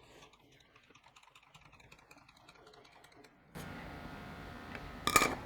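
Faint, rapid light clicking of small hand-worked parts. About three and a half seconds in, a steady low hum comes up, and a single sharp knock sounds near the end.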